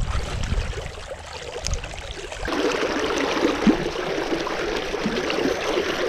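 Fast creek current rushing and gurgling close by, growing louder about two and a half seconds in. Before that there is a low rumble.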